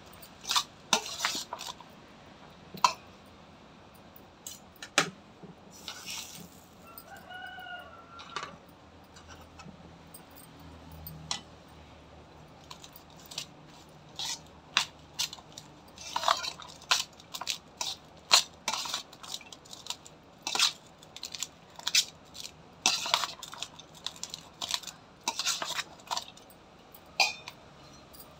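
Steel spoon clinking and scraping against a stainless-steel bowl as cooked rice is mixed: irregular sharp clinks, thickest in the second half. A rooster crows faintly about eight seconds in.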